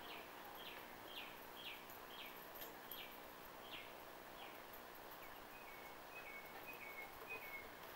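Faint birdsong over quiet outdoor background hiss: a bird repeats a short falling whistle about twice a second, then switches to a run of quicker, lower, flatter notes in the second half.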